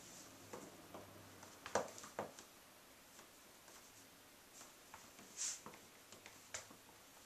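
Faint taps and scuffs of stiletto heels on a tile floor as the feet shift position: two sharp taps about two seconds in, a brief scrape about five and a half seconds in, and a few softer clicks.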